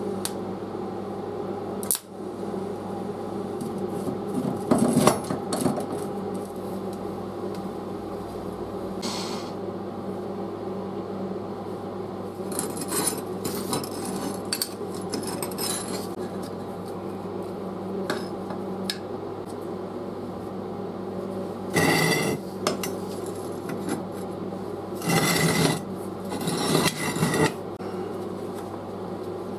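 Metal parts and hand tools clinking, scraping and clattering in irregular bursts over a steady machine hum.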